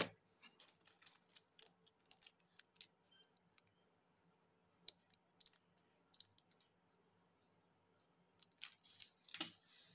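Quiet handling of small craft parts and a plastic packet of luminous beads on a cloth-covered table. A sharp click at the start is followed by scattered small clicks and ticks, and a short run of plastic crinkling about nine seconds in.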